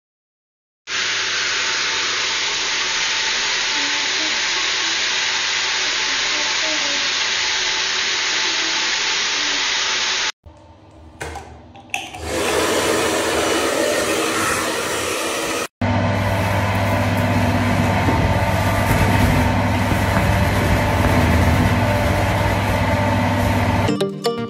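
Steady rushing noise, cut into several separate stretches. From about halfway through, a hair dryer blows, with a strong low hum under its rush in the last stretch.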